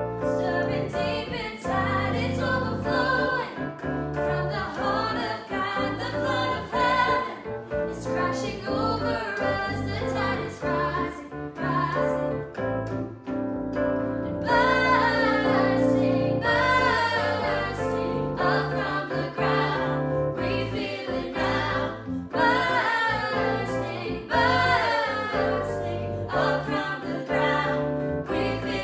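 Gospel-style worship music: voices singing a melody over sustained instrumental chords.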